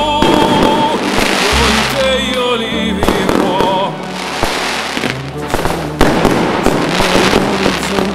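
Fireworks bursting and crackling in a rapid, irregular run of bangs, with a loud bang about six seconds in. Under them a slow Italian song plays, a singer holding long, wavering notes.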